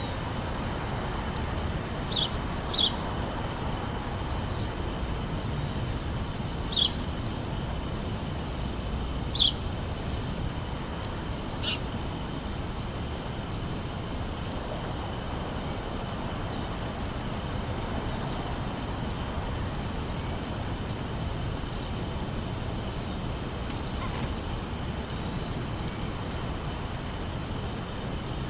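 Small songbirds chirping. Several sharp, single chirps come in the first part, then runs of quick, high chirps later on, over a steady low background rumble.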